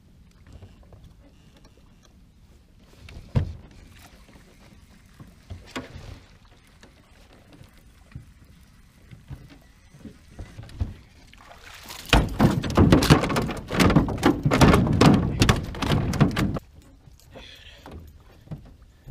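Largemouth bass being fought and landed at a small boat: scattered knocks on the boat early, then about four and a half seconds of loud splashing and thrashing, about two-thirds of the way in.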